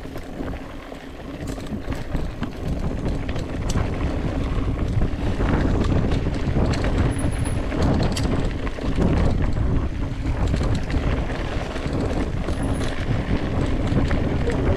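Wind buffeting the microphone of a moving mountain bike, with scattered clicks and knocks from the bike on the trail, getting louder over the first few seconds.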